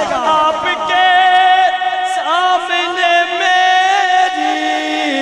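A man's solo voice singing a devotional naat in long, drawn-out notes that bend and waver up and down.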